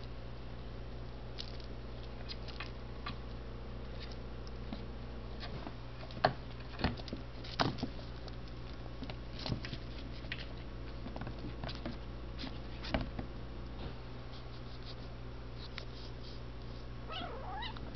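A kitten pounces on and bats a toy mouse on a string across a wooden floor: scattered light taps, scratches and knocks, with a few sharper knocks clustered about six to eight seconds in. Near the end there is a brief pitched call.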